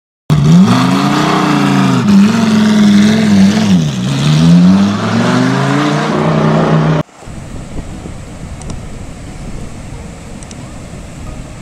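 Loud intro sound effect, a pitched sound that rises and falls in pitch, cutting off suddenly about seven seconds in. Then a steady, quieter rush of surf washing over a rocky shore.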